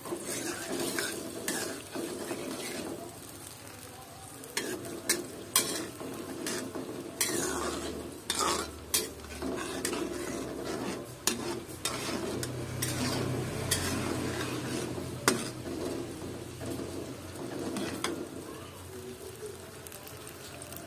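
Metal spatula scraping and clacking against a wok as sliced sausages are stirred, over a steady sizzle of frying in oil and seasoning paste.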